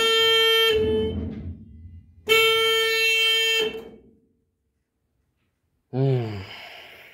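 A Bizon combine harvester's electric horn sounds two steady beeps, the second longer. The first is followed by a low rumble that fades out within about a second: the starting attempt fails on a battery that is still too weakly charged.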